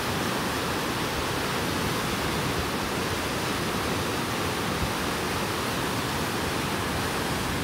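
Whitewater of a river standing wave rushing steadily: an even, unbroken hiss of churning water.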